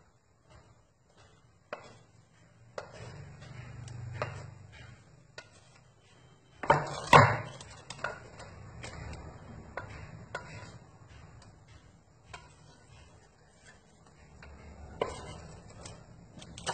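Knife cutting set agar jelly on a wooden cutting board: scattered light taps and knocks as the blade meets the board and pieces are set on an aluminium tray, with the loudest knocks about seven seconds in.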